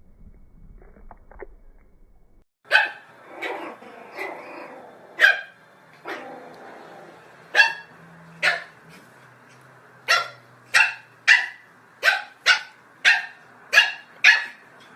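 A dog barking over a dozen times in short, sharp single barks, starting about three seconds in and coming faster, about two a second, in the second half.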